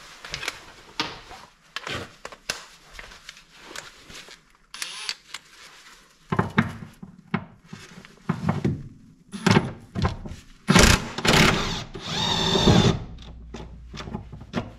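16 mm wrench working the mounting bolt of a car's rear shock absorber loose: a string of metal clicks and knocks, busier and louder from about halfway, with a brief louder burst near the end.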